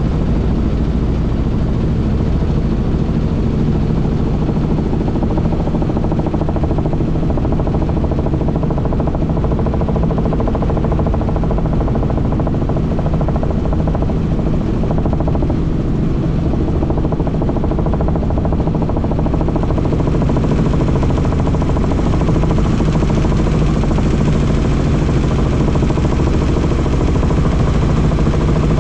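Helicopter running steadily in flight: a dense, low drone of engine and rotor with a hum of evenly spaced tones. It grows a little louder about two-thirds of the way through.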